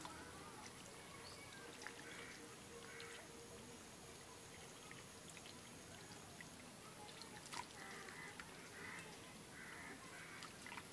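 Faint wet squelching and dribbling of mud as hands grope through a muddy ditch, over a steady low hiss. A few faint calls sound in the distance, some of them near the end.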